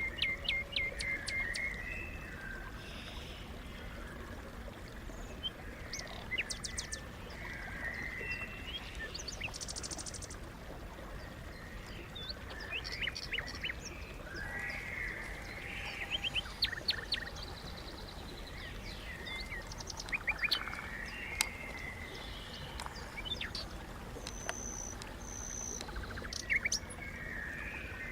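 Several songbirds singing and calling on and off: quick chirps, whistles and short trills, including a brief high buzzy trill about ten seconds in, over a steady low rumble.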